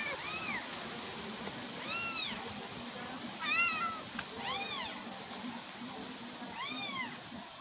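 A cat meowing repeatedly, five or six separate high meows, each rising and then falling in pitch over about half a second, with irregular pauses between them.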